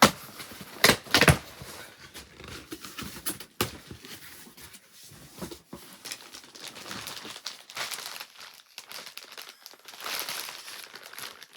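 A cardboard shipping box being opened by hand: a few sharp rips about a second in, then rustling, clicking and crinkling of the box and packaging, getting denser near the end.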